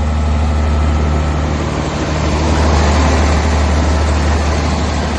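600 kVA Caterpillar diesel generator engine running steadily after its wiring repair, with a deep, even hum. It gets slightly louder about halfway through.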